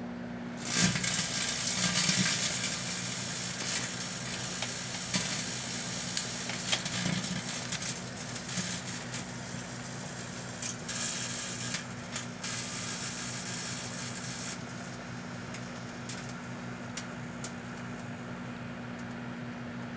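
Proctor-Silex microwave oven humming as the metal screws inside arc. A dense crackle of sparks starts about a second in, is loudest over the next few seconds, then thins to scattered snaps after about fifteen seconds.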